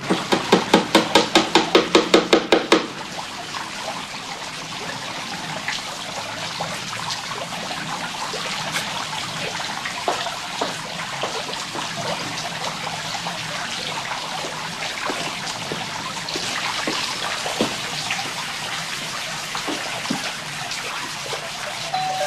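Garden fountain splashing steadily, water jets falling into a pond and a lion-head spout running into a basin. The first two or three seconds are taken by a loud rapid pulsing sound, about five beats a second, that stops suddenly.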